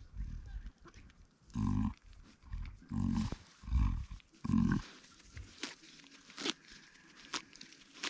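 A ewe gives four short, low-pitched calls close together, the soft deep call a ewe makes to her newborn lamb. The calls are followed by faint crackles and rustles in the grass.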